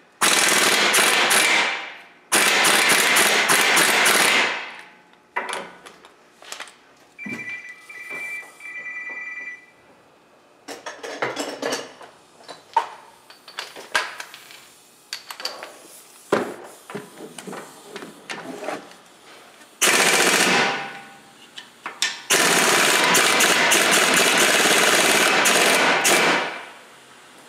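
Air impact wrench hammering in four long bursts, two close together at the start and two more near the end, loosening the 17 mm strut bolts. Scattered metal clanks fall between the bursts.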